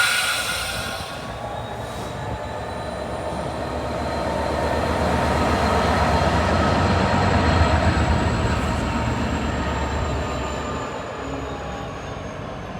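A train running past on the line: a low rumble that swells to a peak in the middle and fades away, with a thin high wheel whine slowly falling in pitch. A burst of high hiss dies away within the first second.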